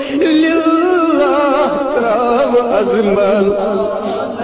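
A voice singing a devotional hymn in praise of the Prophet, an unaccompanied, slow melody with wavering, ornamented turns in pitch.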